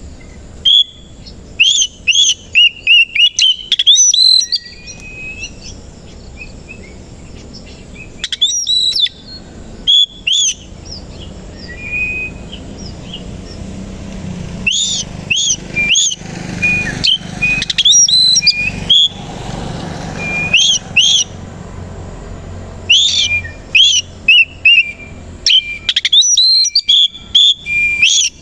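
Oriental magpie-robin (kacer koci) singing in loud bursts of sharp, sweeping whistled notes, with short pauses between the groups of phrases.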